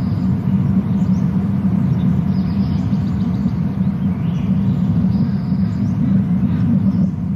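Steady low rumble on an outdoor nest-camera microphone, with faint short high bird chirps a few times.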